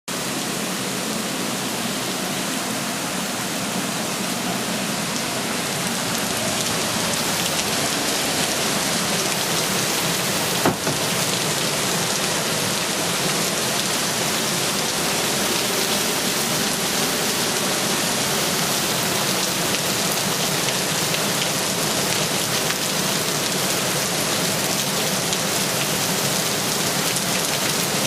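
Heavy rain falling steadily as a dense, even hiss, with a single sharp click about ten seconds in.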